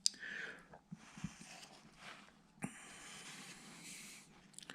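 A few faint clicks and knocks, then a soft steady scraping hiss lasting under two seconds: a small carving gouge cutting into the wood to hollow out an eye socket.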